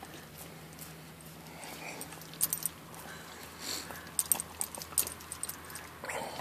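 Collie licking and biting at an ice cream cone: scattered wet smacks and clicks, few at first and coming thick and fast in the second half, over a faint low hum.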